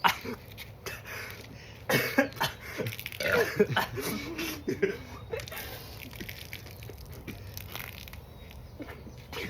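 People coughing and burping after gulping fizzy ginger ale. There is a short burst about two seconds in and a longer one from about three to five seconds, then only faint room noise.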